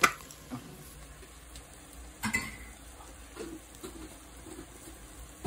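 Chopped vegetables sizzling low in an enamelled cast-iron Dutch oven as flour is added to start a roux. Two sharp clinks of kitchenware, the louder one at the start and another a little over two seconds in.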